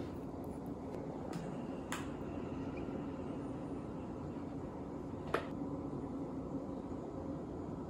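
Steady low room hum with three light clicks of a spatula and ladyfinger pieces against a glass dessert cup while thick cream is spooned in. The sharpest click comes about five seconds in.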